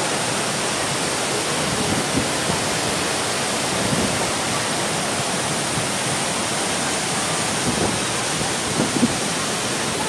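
Steady rush of a large curtain waterfall, its many strands of falling water and spray making an even noise.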